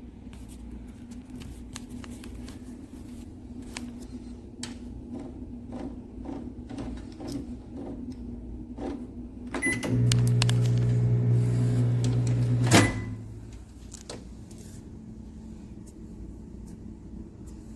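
Galanz retro countertop microwave: scattered clicks of its buttons being pressed. About ten seconds in it beeps and starts running with a loud, steady electrical hum. The hum lasts about three seconds and cuts off with a sharp click and another beep.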